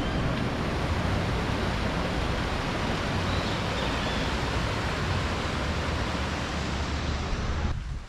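Steady rushing of a rocky stream below a small waterfall, an even unbroken noise with a low rumble under it, cutting off abruptly near the end.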